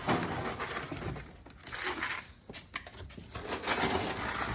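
A scoop digging into horse feed (sweet feed and easy keeper) and pouring it into a container. Gritty rustling pours come in about three bursts, with a few light knocks between them.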